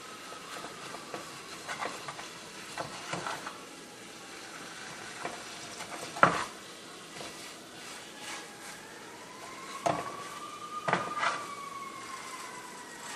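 Food sizzling in a pan, with irregular clinks and knocks of a utensil against cookware; the loudest knock comes about six seconds in.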